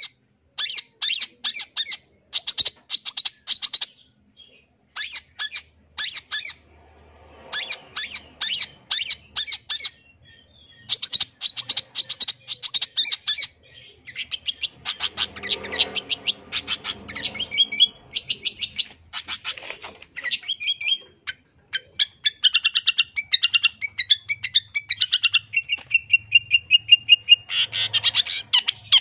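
Long-tailed shrike singing a fast, harsh chattering song in quick bursts with short pauses, full of calls mimicked from other birds, and one held whistle near the end.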